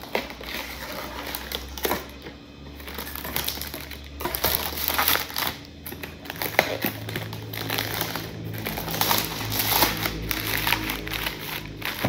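Plastic shrink-wrap crinkling and small plastic soda bottles knocking together as a wrapped pack is opened and bottles are lifted out, over background music.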